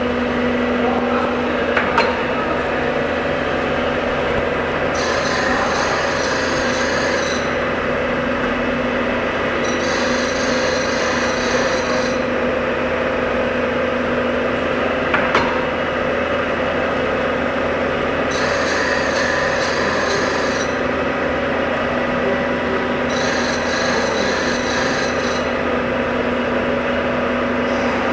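Hob sharpening grinder running with a steady hum while its dish grinding wheel works the flutes of a gear hob cutter. Four times, a hiss of about two seconds rises over the hum as the wheel grinds along a flute face, and a couple of light knocks come through.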